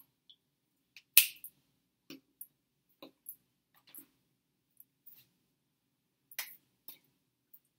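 Sharp slaps and taps of hands while signing. One loud slap comes about a second in and another about six and a half seconds in, with faint small clicks and taps between them.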